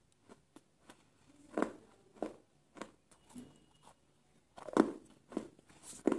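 A person chewing crunchy food, with irregular crisp crunches between quieter pauses; the loudest crunches come near the end.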